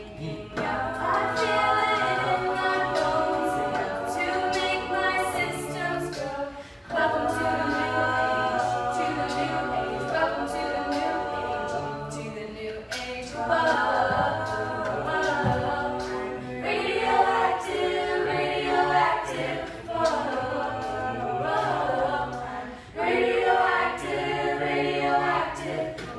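Small mixed-voice a cappella group of five singing a close-harmony arrangement in phrases of several seconds, with brief breaks about 7, 13 and 23 seconds in. One male singer adds vocal percussion into his cupped hand, heard as light regular clicks.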